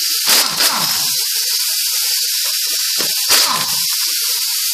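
Pneumatic impact wrench with a 21 mm deep impact socket firing in two short bursts on a wheel's lug nut, about half a second in and again about three seconds in, over a steady air hiss.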